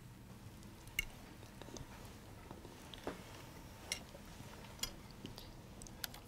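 Cutlery clinking on dinner plates: a few sharp, irregular clinks, the loudest about a second in, over a faint low room hum.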